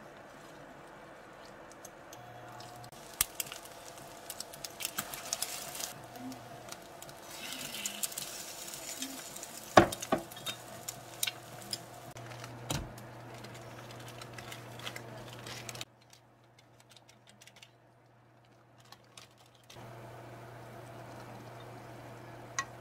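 Egg-dipped kimbap slices frying in oil in a pan: sizzling, with scattered clicks and knocks of utensils against the pan, the loudest about ten seconds in, over a steady low hum. After a quieter stretch, ramyeon is stirred with chopsticks in a saucepan near the end.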